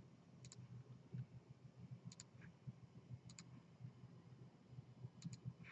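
Computer mouse clicking: four pairs of quick, sharp clicks spaced a second or more apart, over near silence with a faint low hum.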